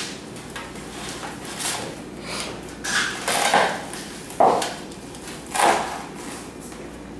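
Hands-on food preparation: a string of irregular scrapes, knocks and rustles, roughly one a second, as containers and food are handled.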